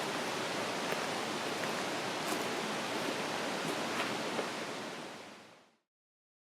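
Steady outdoor rushing noise with a few faint scattered ticks, fading out to silence about five seconds in.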